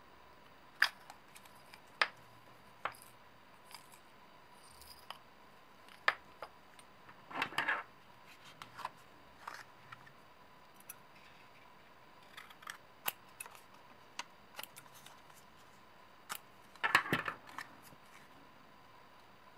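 Scissors snipping through sticky-note paper, two cuts about ten seconds apart, among scattered light clicks and taps of small objects handled on a desk.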